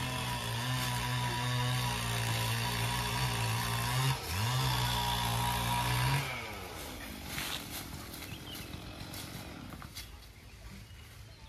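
A small engine running steadily at high speed, dipping briefly about four seconds in, then dropping in pitch and fading out about six seconds in.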